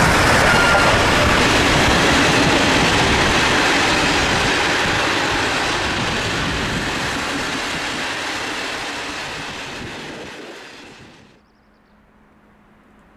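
Passenger coaches of a steam-hauled train rolling past on the rails, the noise slowly fading as the train draws away. It drops off suddenly to a quiet background about eleven seconds in.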